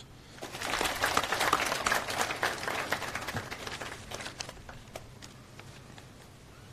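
Audience applauding, a dense patter of clapping that thins to a few scattered claps after about four seconds.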